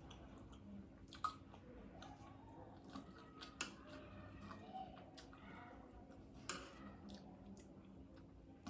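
Someone quietly chewing a mouthful of instant noodles, with soft wet mouth clicks and a few sharper clicks, the loudest about a second in and another near six and a half seconds.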